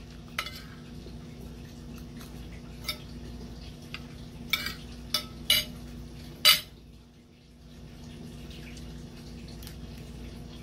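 Cutlery clinking against a plate now and then during a meal, a few separate clinks with the loudest about six and a half seconds in, over a steady low hum.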